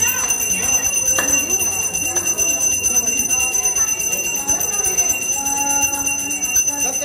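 Bell ringing continuously at a fast, even rate, over the voices of a crowd.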